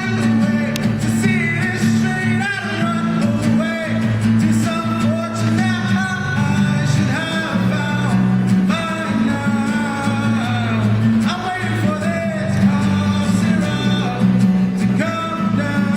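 A man singing with strummed acoustic guitar accompaniment, holding long notes over steady chords.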